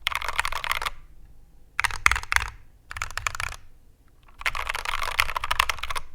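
Mechanical keyboard with Kailh Polia tactile switches being typed on in four quick bursts of keystrokes, each burst a rapid run of clacks, with short pauses between them.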